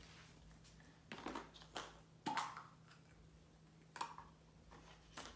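A handful of faint, sharp clicks and taps of plastic Easter eggs being snapped open and set down on the floor.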